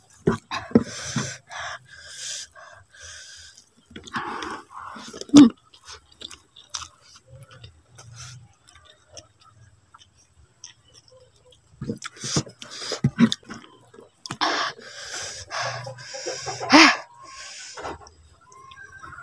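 Close-up mukbang eating sounds: a mouthful of rice and vegetables chewed with wet smacks and mouth clicks, in irregular bouts with short pauses between.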